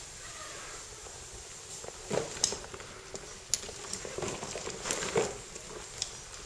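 A caver handling rope and harness gear while hanging in a shaft: scattered sharp clicks and short rustling scrapes, starting about two seconds in.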